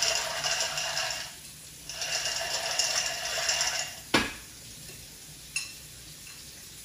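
A small glass jar handled over a bowl of food: two spells of rushing, hissing noise from its contents, then one sharp clunk just after four seconds in and a lighter tap a second and a half later.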